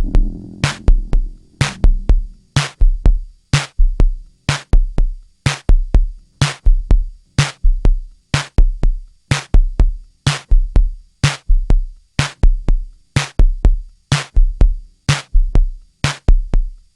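Electronic drum-machine beat: low kick-drum thumps alternating with sharp snare or clap hits in a steady, even rhythm.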